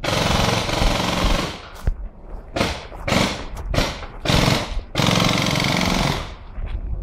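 Paintball markers firing in rapid bursts of shots, about five bursts with short gaps between them. The longest bursts come at the start and about two-thirds of the way through.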